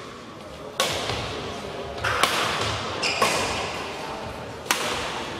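Badminton rally: rackets striking the shuttlecock four times, about a second apart, each hit sharp and echoing in a large sports hall.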